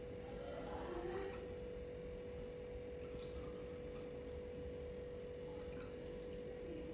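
Faint, steady hum at one mid pitch over quiet room noise.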